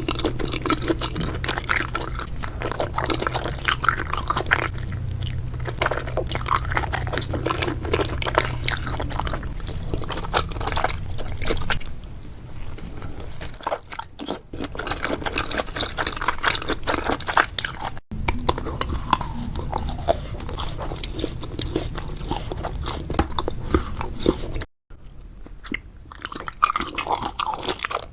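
Close-miked ASMR eating: chewing and crunchy bites of food, with dense crackling crunches and a few abrupt cuts between clips.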